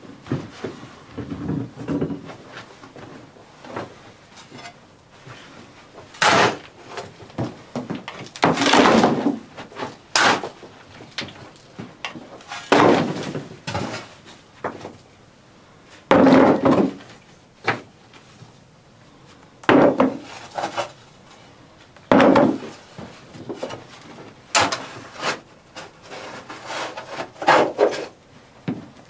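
Hand digging in hard, stony soil: a long-handled digging tool strikes and scrapes into the ground every two to four seconds, with loose earth rustling between the blows.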